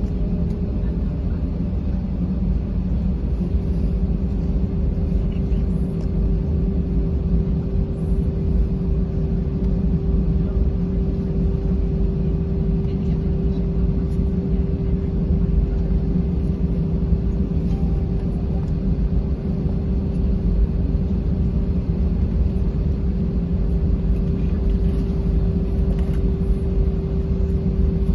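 Airbus A320 cabin noise while taxiing after landing: a steady low rumble with a steady hum.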